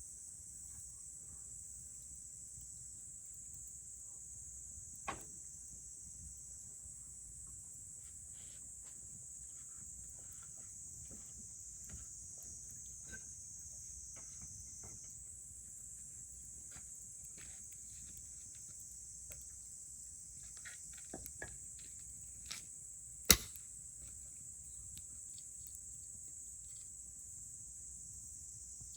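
Wood fire crackling with scattered small snaps and a sharp, much louder pop a little past two-thirds of the way through. Under it runs a steady, high-pitched chorus of insects.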